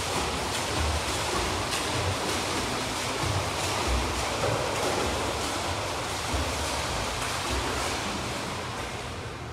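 Steady splashing of a swimmer's freestyle strokes and kicks in an indoor lap pool, a continuous rush of churned water with faint regular slaps.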